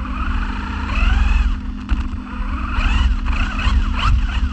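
A radio-controlled car's motor whining, its pitch rising and falling again and again with the throttle, over a rough low rumble and a steady low hum, picked up by a camera mounted on the car.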